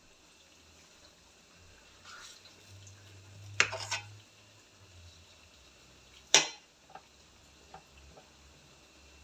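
Kitchen clatter: a few sharp clicks and knocks of crockery, a cluster about three and a half seconds in and a single loud one about six and a half seconds in, then a few light ticks, over a faint low background.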